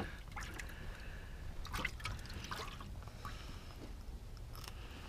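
Light water trickling and dripping, with a few small clicks and knocks.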